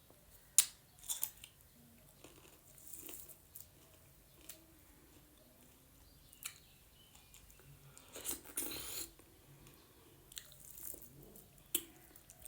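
Close-miked eating sounds of white-maize dhido with thin nettle soup: chewing and mouth smacks with scattered sharp clicks, and a longer wet noise about eight seconds in.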